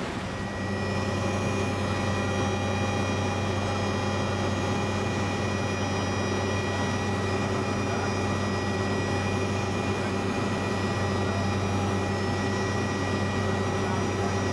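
Helicopter engine and rotor heard from inside the cabin: a steady drone with a strong low hum and several high steady whines, coming up about half a second in.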